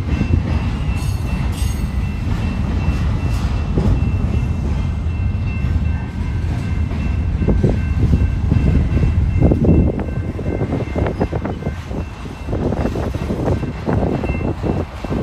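Double-stack intermodal container freight train rolling past at close range: a steady low rumble of wheels on rail, with rattling and clanking of the cars becoming frequent from about halfway through.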